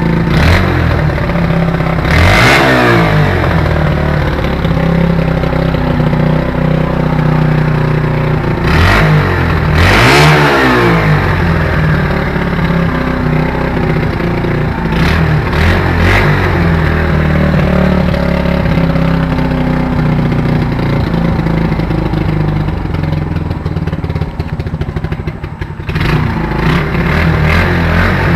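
Yamaha SR125 single-cylinder four-stroke engine idling and revved in several short throttle blips. It misfires at the higher revs with an anti-lag-like exhaust sound, which the owner blames on an intake leak. Near the end the idle dips and stumbles briefly.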